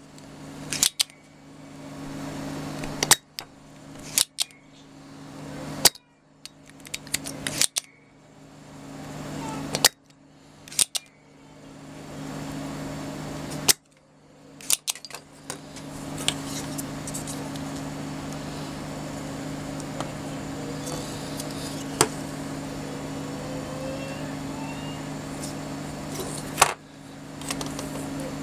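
Spring-loaded desoldering pump snapping as it sucks solder from relay pins on a circuit board: about a dozen sharp clicks a second or several seconds apart, over a steady low hum.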